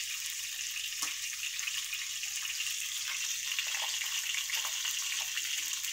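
Whole yellowtail fish frying in hot oil in a frying pan: a steady sizzle with scattered small crackles and pops, cutting off suddenly at the end.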